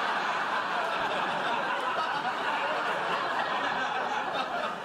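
Studio audience laughing together, a steady wash of laughter that eases off near the end.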